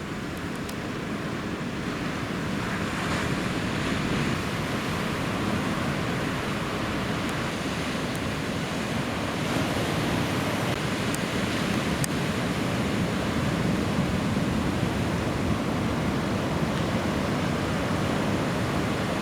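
Ocean surf: waves breaking and washing in, a continuous rushing noise that swells and eases gently.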